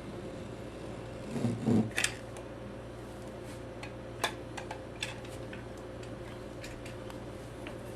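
Steady hum with a dull thump about a second and a half in, followed by a sharp click and several scattered light clicks and taps, from hand work with tools while the molding seams and nail holes are filled.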